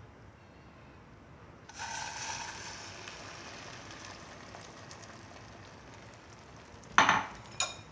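Beaten egg, cheese and grated potato mixture poured into hot oil in a pan. It starts sizzling suddenly about two seconds in, and the sizzle slowly dies down. Near the end come two sharp clinks or knocks, about half a second apart.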